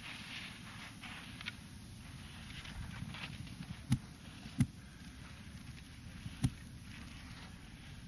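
Wind rumbling low on the microphone with a faint hiss, broken by three sharp clicks: one about four seconds in, one half a second later, and one about two seconds after that.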